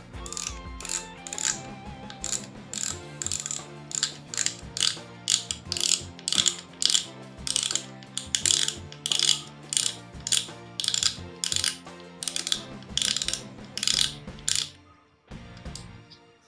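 Front drag knob of a Shimano Sienna 1000 FE spinning reel being turned by hand, giving a steady run of sharp ratchet clicks, about two a second, that stops near the end.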